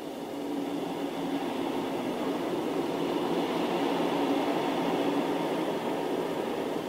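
Freight train of tank wagons rolling past, a steady rumbling noise of steel wheels on the rails that grows louder over the first few seconds.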